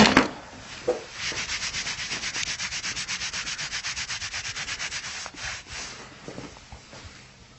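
Rapid rhythmic rubbing of hands against the patient's body, about ten strokes a second for some four seconds, beginning about a second in and then fading away.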